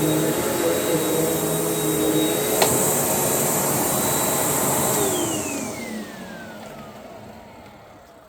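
Panasonic upright vacuum cleaner running with a steady high whine, with one sharp click about two and a half seconds in. About five seconds in it is switched off and the motor spins down, its whine falling in pitch and fading away.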